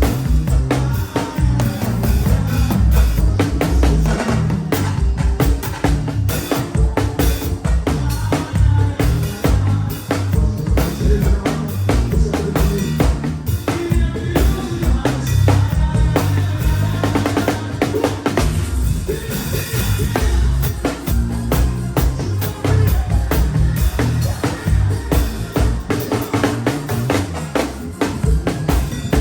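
Drum kit played along to a forró backing track: fast, busy bass-drum pedal strokes with snare hits, rimshots and rolls over the recorded music.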